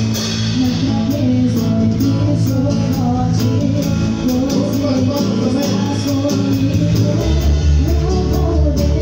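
A live worship band playing: a drum kit heard up close with steady cymbal strikes, guitars and bass, and voices singing over it. The bass grows heavier about seven seconds in.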